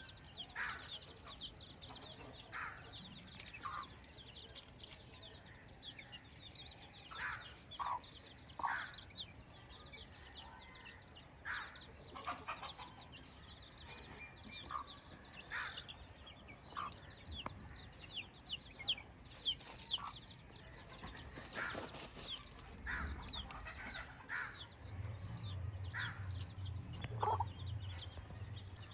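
Chickens clucking in scattered short calls over a steady stream of quick high chirps. A low hum comes in near the end.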